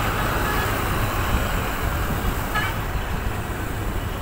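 Diesel engines of an excavator and a backhoe loader running steadily, a constant low hum under a broad mechanical noise.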